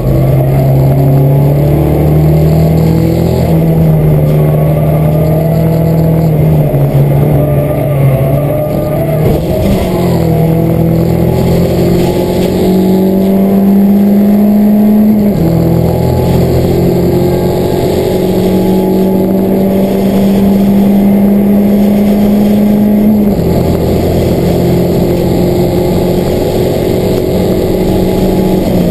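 Peugeot 207 race car engine heard from inside the cabin, running hard at speed on the circuit. The pitch climbs slowly, then drops sharply about fifteen and twenty-three seconds in, as at gear changes.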